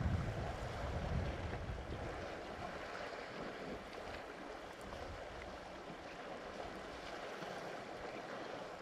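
Water sloshing and splashing as a herd of African elephants wades through deep water. Wind buffets the microphone in the first second, then dies down.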